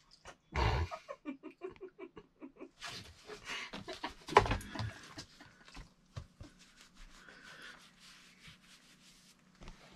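A hand rubbing and petting a dog's long fur, a scratchy rustle with a sharper scrape about four and a half seconds in. Before that, a thump and a quick run of short pitched sounds.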